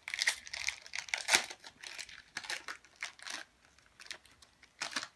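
Foil wrapper of a Pokémon trading card booster pack crinkling and tearing as it is opened by hand, in irregular rustling bursts, loudest about a second and a half in.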